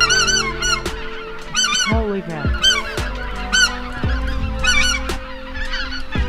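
A flock of geese flying overhead, many birds calling at once in repeated honks that come in clusters about once a second.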